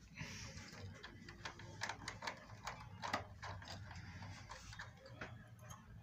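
Screwdriver working a screw loose on an air conditioner's indoor unit: faint, irregular clicks and ticks of metal on plastic, many in quick succession.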